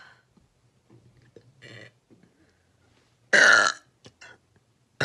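A person burping: one loud, short burp a little over three seconds in, lasting about half a second, with faint small sounds before it.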